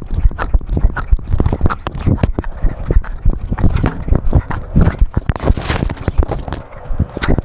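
Irregular thumps, knocks and rubbing from a GoPro strapped to a cat, jolted by each of its steps as it moves over pavement and ground, with a brief rushing noise a little past the middle.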